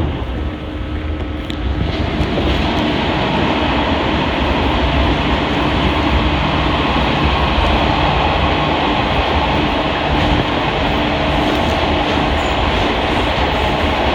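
Shinano Railway 115-series electric train running, heard from inside the carriage: a steady rumble of wheels on the rails with a faint constant hum, growing louder about two seconds in.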